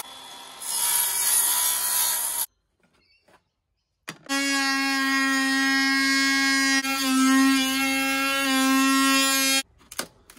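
Power tool cutting a groove into wood for a cable run: a rough, rasping cut for about two and a half seconds, then, after a break, a steady high whine that stops sharply near the end.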